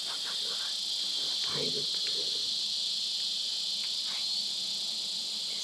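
Steady high-pitched insect chorus.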